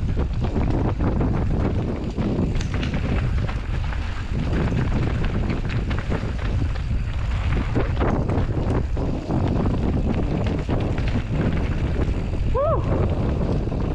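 Wind buffeting the microphone over the rumble and clatter of a Rocky Mountain Slayer Carbon 50 mountain bike riding a dirt trail, with tyre noise and many small knocks and rattles from the bike. A short squeak rises and falls near the end.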